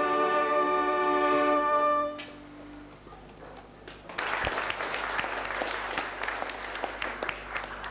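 A flute-and-violin ensemble holds the final chord of a hymn, which stops about two seconds in. After a short hush, applause breaks out about four seconds in and carries on.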